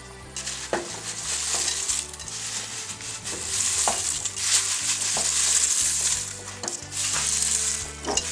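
Chopped sorrel leaves scraped by hand from a bowl into a pot of hot soup: a rustling hiss that swells and fades several times, with a few light clicks.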